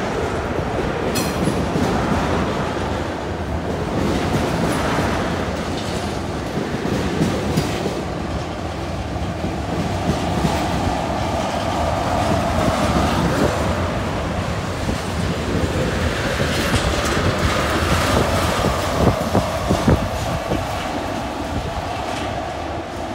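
Freight train of tank cars rolling past below, steel wheels on rail making a steady rumble with scattered clicks over the rail joints.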